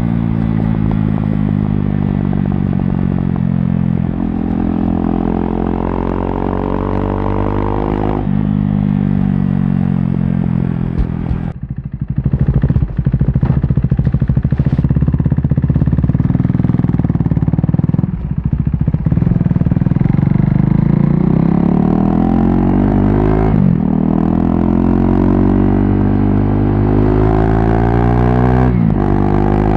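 KTM RC390's single-cylinder engine through a barrel exhaust with the dB killer removed, under way and pulling through the gears. The pitch climbs steadily and drops sharply at each upshift, about four times. There is a brief roll-off of the throttle about twelve seconds in.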